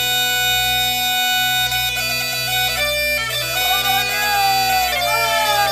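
Background music: steady held drone notes under a slow melody that slides up and down in pitch, in a bagpipe-like style.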